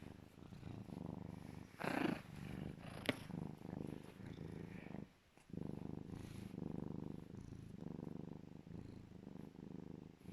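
An African serval purring steadily, with a brief pause about five seconds in. A short louder sound about two seconds in and a sharp click a second later.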